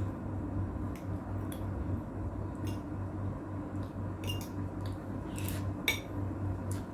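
Cutlery clinking and scraping against a plate a few times while eating, over a steady low hum.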